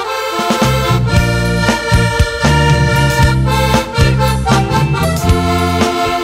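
Instrumental folk music led by a heligonka (Slovak diatonic button accordion) playing the melody over bass notes that change in a steady rhythm.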